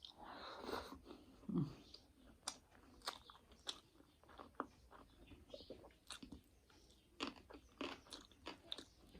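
Close-up mouth sounds of a person chewing food, a faint irregular run of wet clicks and smacks.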